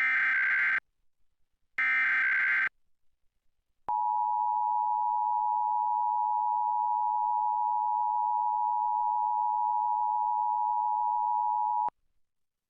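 Emergency Alert System broadcast signal. Two short SAME header data bursts about a second apart open it, then the EAS two-tone attention signal (853 and 960 Hz) sounds steadily for about eight seconds and cuts off, marking the start of a Required Monthly Test.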